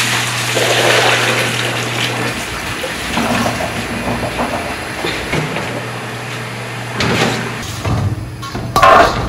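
Dark brine pouring and splashing out of a large jar through a plastic colander into a basin, with pickled vegetable stalks sliding out after it. Near the end comes a short, loud clatter.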